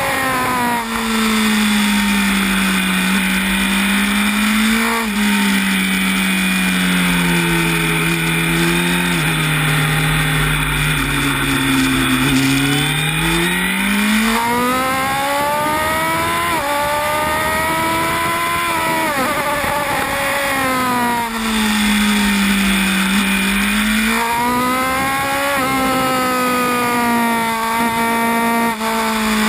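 Honda CB1000R's inline-four engine at racing speed, heard onboard: revs drop through downshifts, hold lower through a long corner, then climb with quick stepped upshifts, falling and rising again a second time. A steady rush of wind noise runs under it.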